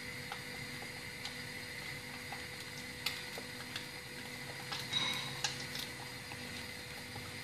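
A table knife spreading soft spreadable cheese on a slice of sandwich bread: faint soft scrapes and small clicks, a slightly louder scrape about five seconds in, over a steady electrical hum.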